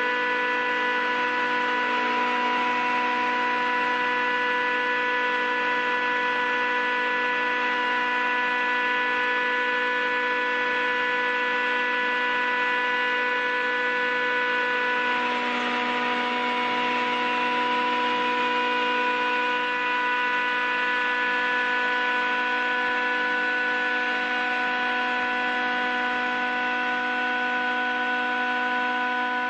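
Fritsch Pulverisette 19 universal cutting mill running while sample is fed into its funnel: a steady, loud machine hum made of several held tones over a rushing noise of material being cut. The rushing swells for a few seconds about halfway through.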